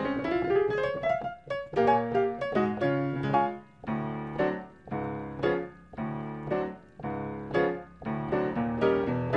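Solo piano music: a quick rising run of notes in the first second, then a steady beat of chords about once a second.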